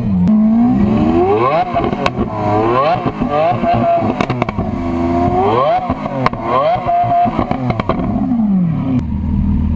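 Lamborghini Aventador's V12 engine revved repeatedly while parked, with quick rises and falls in pitch, about half a dozen blips. About nine seconds in it drops back to a steady idle.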